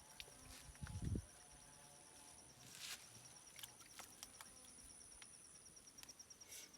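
Faint insects chirring steadily: one a fast, high, pulsing trill, another a thin, continuous high tone. A soft low thump comes about a second in.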